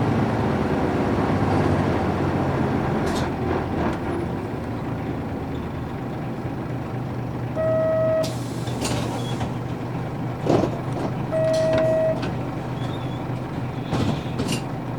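Nissan Diesel U-UA440HSN city bus with its PF6 diesel engine running steadily at low revs, heard from inside, with short bursts of air-brake hiss and two short electronic beeps about 8 and 11.5 seconds in.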